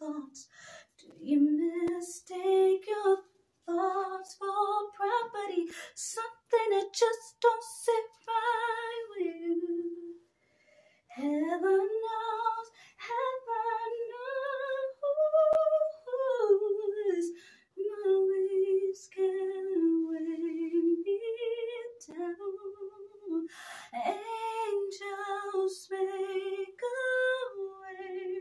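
A woman singing solo without accompaniment, long held and sliding notes with a wavering vibrato and a short pause partway through.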